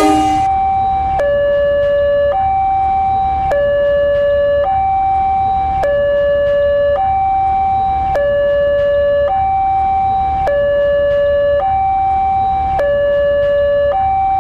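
Two-tone hi-lo siren of the emergency-vehicle kind, stepping evenly back and forth between a higher and a lower note, each held about a second. A loud horn cuts off just at the start.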